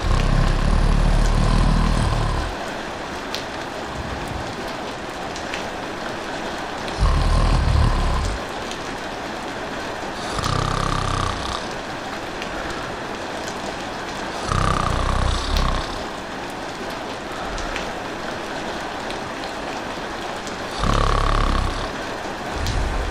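Steady rain falling, with a person snoring slowly over it: about five low snores of one to two seconds each, a few seconds apart.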